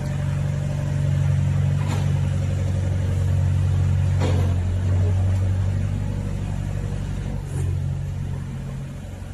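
A motor engine running steadily with a low hum, its pitch dropping a little about halfway through, with a couple of faint knocks over it.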